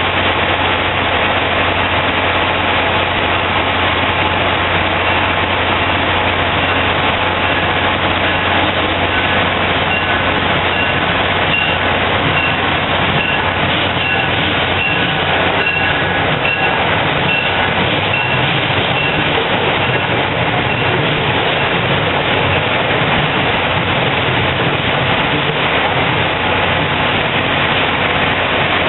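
MBTA commuter rail train powered by an F40PH diesel locomotive rolling slowly alongside the platform, its coach wheels clicking over rail joints under a steady engine hum. A short high-pitched ring repeats about twice a second through the middle of the pass.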